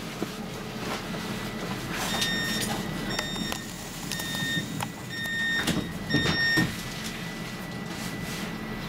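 Five short, evenly spaced beeps, about one a second, from a Stockholm A35 tram's door warning signal while the tram stands at a stop, over the tram's steady low hum, with a few knocks.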